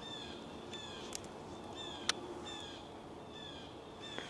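A bird calling repeatedly: a regular series of short, downward-slurred calls, a little more than one a second. A sharp click about two seconds in.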